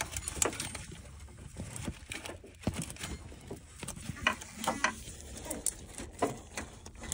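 Rubber coolant hose being twisted and worked by a gloved hand to break it free of a rusty metal coolant pipe: scattered rubbing, creaking and light knocks. The hose is stuck fast and does not come off easily.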